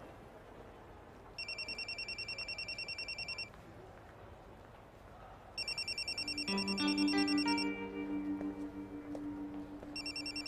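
Mobile phone ringing with a fast electronic trill, in three bursts of about two seconds each. Soft background music comes in about halfway through.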